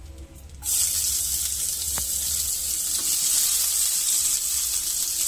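Sliced onions dropped into hot oil in a kadai, breaking into a loud, steady sizzle that starts suddenly about half a second in.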